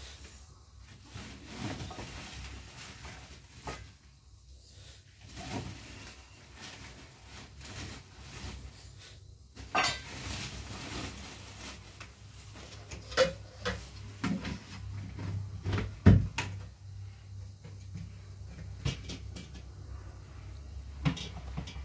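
Scattered knocks and clinks of a small metal cup and containers being handled against a steel tray and a plastic bucket while flour is scooped out, the sharpest knock about two-thirds of the way through, over a low steady hum.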